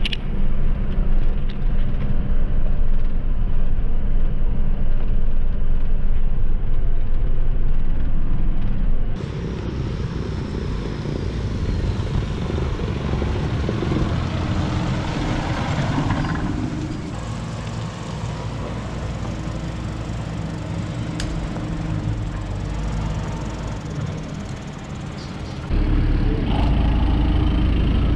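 John Deere 6930 tractor's six-cylinder diesel running steadily, heard from inside the cab. About nine seconds in, the sound changes abruptly to the tractor driving past outside, and near the end a louder, deeper engine rumble cuts in.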